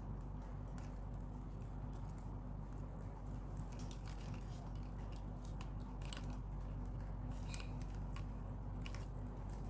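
Stiff plastic craft wire rubbing and clicking as the strands are pulled through and tied into a knot, with a few sharp scratchy clicks in the second half, over a steady low hum.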